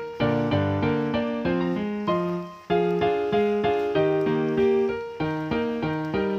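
Background music: a keyboard melody of short, evenly paced notes, each struck and fading.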